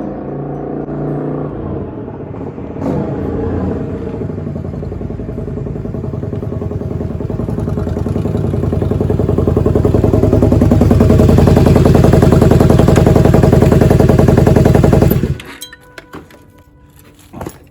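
Honda V-Twin Magna 250's V-twin engine running through a drag-pipe exhaust fitted with a trial silencer. It grows louder through the middle and is at its loudest just before it cuts off suddenly a little after fifteen seconds in, leaving a few faint knocks. The silencer makes it noticeably quieter than the open drag pipe, but it is still loud.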